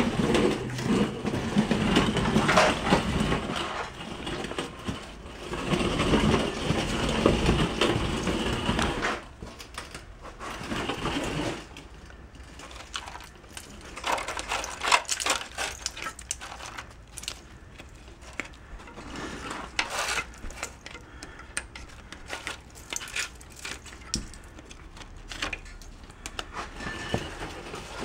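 Rust scale and caked dirt crunching and clattering as they are knocked and flaked off a truck's rusted frame and suspension. A louder, continuous stretch runs through the first nine seconds; lighter scattered taps and scrapes follow.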